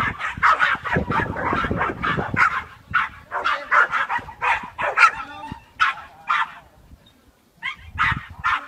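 Jack Russell Terrier barking in a quick string of short, sharp yaps while running an agility course. The barking pauses for about a second near the end, then starts again.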